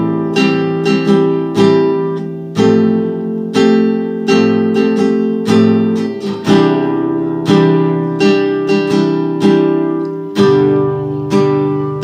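Acoustic guitar strumming a four-chord progression, A minor 7, F add9, C add9 and G, in a steady rhythmic pattern with the chord changing about every four seconds. The added sevenths and ninths give the chords their tension and brightness.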